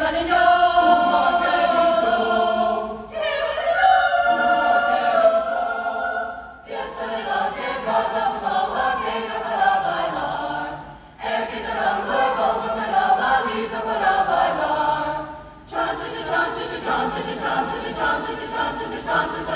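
Mixed choir singing a cappella in several parts, in phrases a few seconds long with short breaks between them. Near the end the singers clap in rhythm as they sing.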